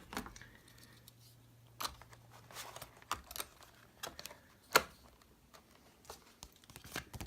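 Scattered light clicks, taps and knocks from cheese knives and their packaging being handled, with one sharper knock a little before five seconds in. A faint low hum runs under the first three seconds.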